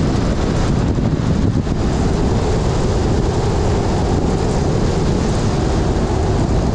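Steady road noise of a car driving: a continuous low rumble of tyres and engine, with wind buffeting the microphone.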